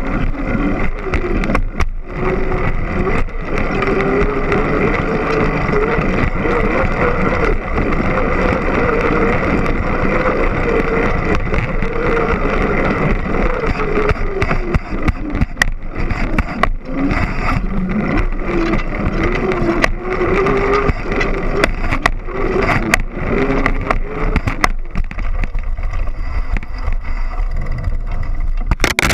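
Trek X-Caliber mountain bike rolling fast on pavement, heard close from a frame-mounted action camera. The knobby tyres hum, rising and falling in pitch with speed, under a steady rush of wind on the microphone. The chain and frame rattle with sharp clicks over bumps.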